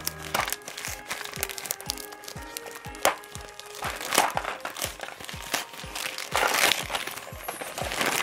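Gift wrapping paper crinkling and tearing in the hands as a small present is unwrapped, in uneven bursts, over background music.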